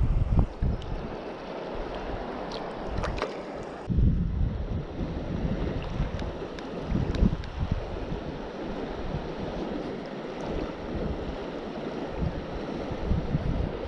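River current rushing over a gravel bed with gusts of wind buffeting the microphone. A few light splashes about three seconds in as a small trout is let go into the shallows.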